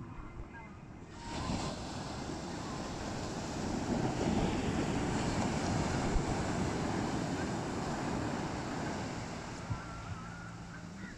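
Ocean surf breaking on a sandy beach: a rush of surf that comes in sharply about a second in, swells, then slowly fades, with some wind on the microphone.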